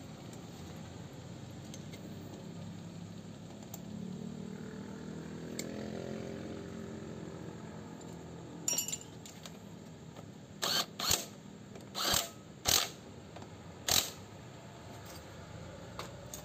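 About six sharp metallic clicks and clinks in the second half, spaced a second or so apart: tools and small engine parts being handled and set down during reassembly. A steady low hum sits underneath.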